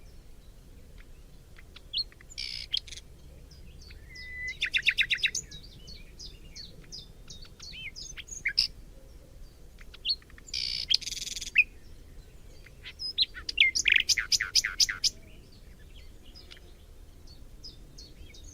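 Forest birdsong: several birds chirping, with a fast trill about five seconds in and another about fourteen seconds in, and two short buzzy calls, over a faint steady low rumble.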